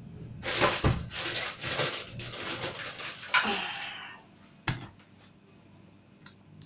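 Hand-turned pepper mill grinding black pepper: a run of about eight rasping twists, roughly two a second, for about four seconds, then a single short knock.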